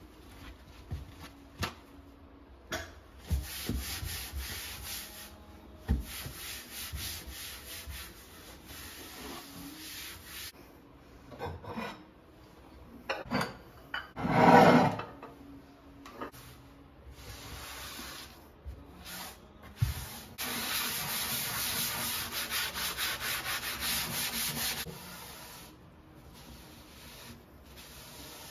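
A cloth rubbing over a kitchen cabinet shelf in quick back-and-forth wiping strokes. The wiping comes in several spells, the longest near the end. There are scattered small knocks and one loud, short bump about halfway through.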